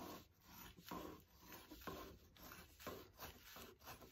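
Scissors snipping through a folded plastic tablecloth: a quiet run of short cuts, about two to three a second.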